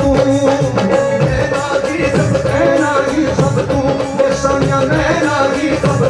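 Live Punjabi song: a male vocalist singing over a band, with a steady held note underneath and drum beats.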